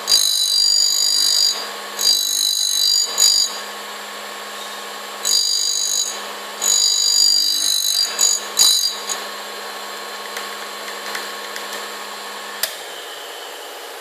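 MR-M3 tool grinder's wheel grinding the tip of a CNC insert as the tool holder is swung back and forth. A high, ringing screech of several tones comes and goes about five times over the first nine seconds. After that only a faint steady running sound remains, with a single click near the end.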